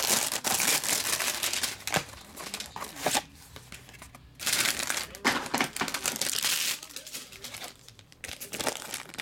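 Crinkling cellophane shrink wrap being pulled off a trading-card box, then a foil card pack crinkling as it is handled. The crinkling comes in two spells, with a quiet pause about three seconds in and fainter rustles near the end.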